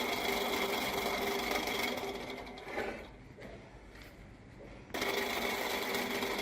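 A machine's motor running with a steady whine. It fades away about two to three seconds in and starts again abruptly about five seconds in.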